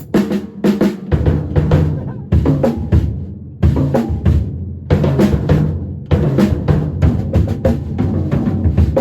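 Drum kit played live: bass drum, snare and cymbals in a busy groove, with short breaks about two and a half and three and a half seconds in.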